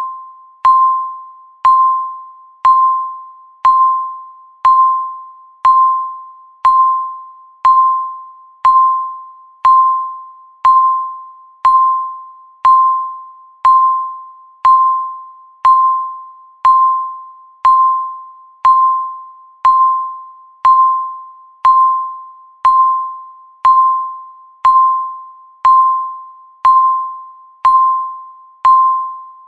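Countdown timer beeping once a second: a single clear tone that starts sharply and fades before the next, about thirty in a row at an even pace.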